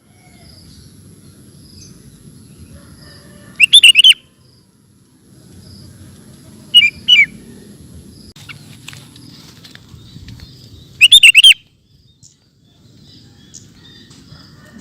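Sooty-headed bulbul (kutilang) singing three short, loud song phrases, a few seconds apart, over a faint low background rumble.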